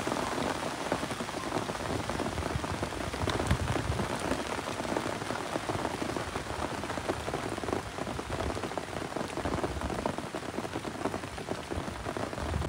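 Steady rain pattering on a surface, a dense even crackle of drops.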